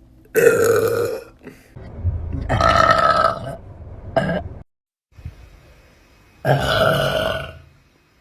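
A young woman's loud, drawn-out burps: three long ones and a short one between the second and third.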